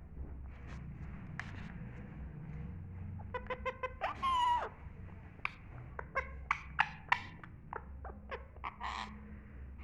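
Pet parrot making a quick run of short, sharp calls and clicks. Its one longer pitched call, just after four seconds in, is the loudest and falls slightly at the end. More short, sharp calls follow over the next few seconds.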